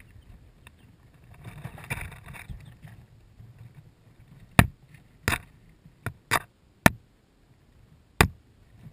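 Young chicks pecking and knocking at a camera sitting among them: six sharp taps over the second half, after a brief rustle of wood shavings and feathers.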